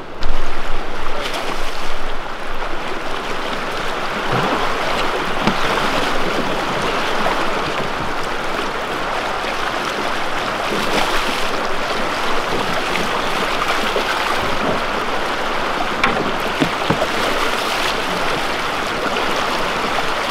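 Shallow, fast river current rushing steadily, heard from a boat on the water, with a loud low thump just after the start and a few small knocks.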